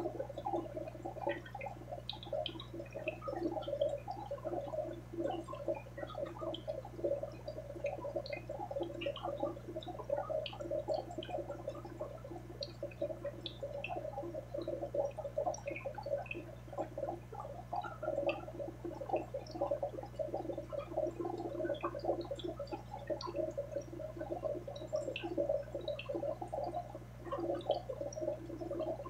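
Aquarium water bubbling and gurgling continuously, with small scattered pops, over a low steady hum.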